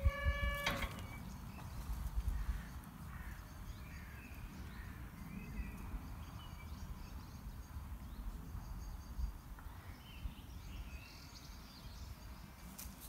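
Outdoor ambience with a low rumble and scattered faint bird calls, short chirps and little glides. A steady ringing tone with overtones carries over at the start and stops within the first second.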